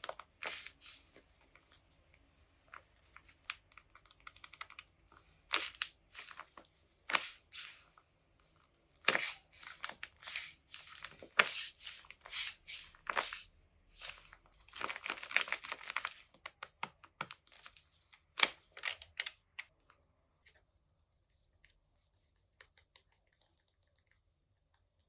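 Paper being handled: irregular short bursts of rustling, crinkling and tearing, thinning out after about twenty seconds.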